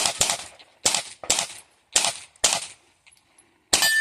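A string of handgun shots, about six, fired at uneven spacing with a longer pause before the last one.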